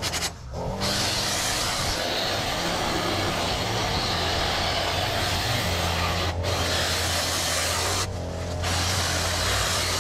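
Lawn-care power equipment running steadily, a dense rasping noise over a low hum, cutting back overgrowth. It breaks off briefly near the start, again around six seconds and just after eight seconds.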